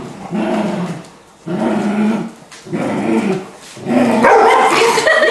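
Beagle puppy growling in play while tugging for a toy: four long growls of about a second each with short breaks between them, giving way to louder, higher-pitched barks about four seconds in.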